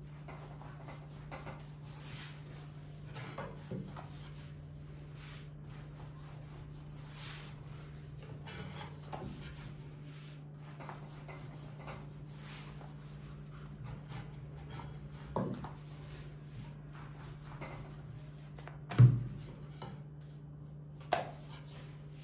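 Dough wrapped around a long thin wooden rolling pin being rolled back and forth and pressed out on a floured table: a soft, continuous rubbing with a few sharp thumps, the loudest near the end.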